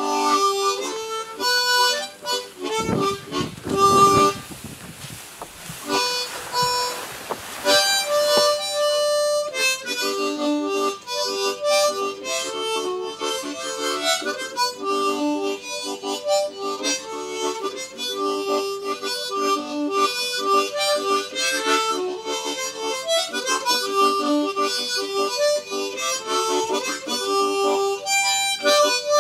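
Background music: a harmonica played as a steady run of melody notes. A rushing noise with a few low thumps sits under it for the first several seconds.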